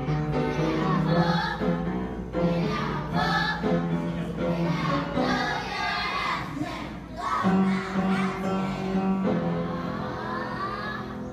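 A group of young children singing a song from a school musical, with piano accompaniment.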